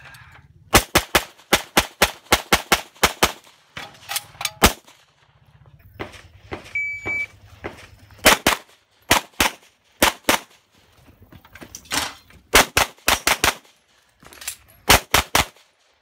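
Competition pistol fired in fast strings of shots, many in quick pairs, as stages are shot at speed. A shot timer's short high beep sounds about seven seconds in, and the next string follows a second or so later.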